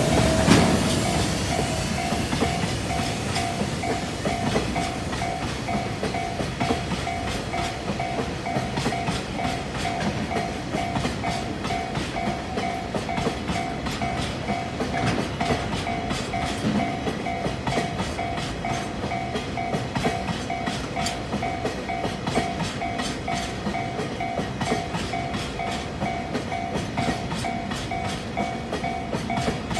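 Freight train hauled by an EH200 electric locomotive passing over a level crossing, its wheels clattering over the rail joints, loudest at the start. The crossing's warning bell rings throughout in a steady, repeating on-off pattern.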